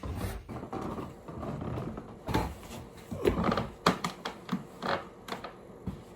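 Irregular knocks and clicks with rustling: someone moving about and handling things. It settles to a faint hum near the end.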